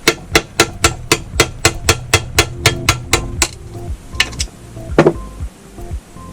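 Rapid, even hammer blows on steel parts of a Borg Warner T5 five-speed manual transmission being torn down, about four strikes a second for some three and a half seconds. After a pause come two or three single, louder blows.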